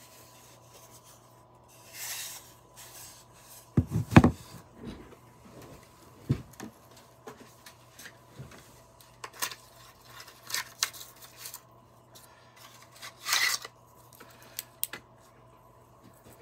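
Handling noises of a wooden cigar box: a few hard knocks of wood on a tabletop about four seconds in as the box is put down, followed by scattered light clicks and two brief rustles.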